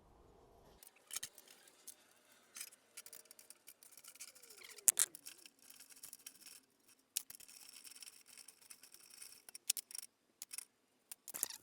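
Scattered sharp clicks and metallic clinks of hand tools and small parts being handled while a mini bike's chain tensioner is taken off, the loudest clink about five seconds in.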